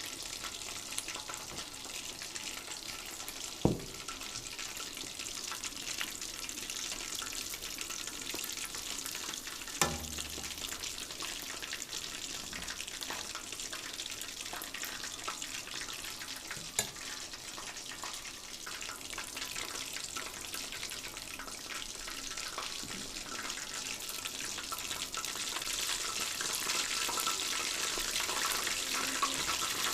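Spiced chicken pieces frying in hot oil, a steady sizzle; the slower-cooking thigh pieces are still being fried through. Three sharp knocks come about 4, 10 and 17 seconds in, and the sizzle grows louder near the end.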